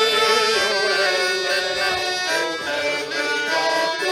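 Traditional folk tune played on button accordions over a steady held drone.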